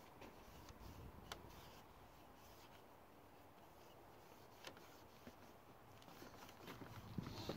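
Near silence: faint room tone with a few soft, isolated clicks.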